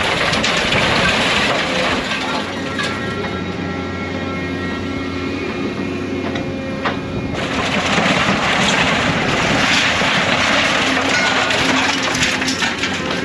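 Scrap material handler's engine and hydraulics running steadily under load as its grapple grabs and drops scrap metal, with scattered metal clanks and crunches.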